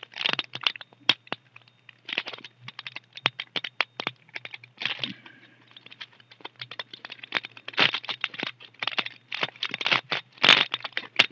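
Wrapper of a pack of trading cards crinkling and tearing as it is opened by hand, in a run of quick crackles and clicks.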